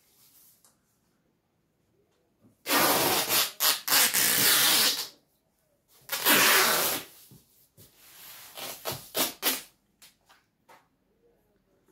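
Adhesive tape being pulled off its roll to seal a cardboard box: two long, loud rips, the first about two and a half seconds and the second about a second, then a few shorter, softer pulls and rustles near the end.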